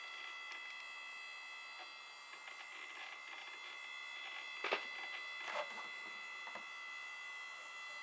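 A steady, high-pitched electronic whine made of several tones at once. Two short clicks or knocks come about halfway through, and these are the loudest sounds.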